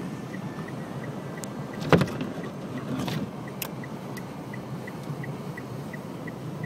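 Blizzard wind buffeting a stopped car, heard from inside as a steady low rumble. A loud knock with a brief rattle comes about two seconds in, with smaller clicks a second later, and a faint regular ticking runs about three times a second.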